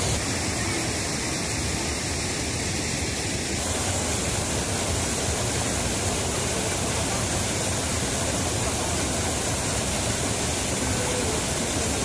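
Water pouring over a stepped weir into shallow whitewater, a steady rushing noise with no breaks. The stream is running high and fast after heavy rain.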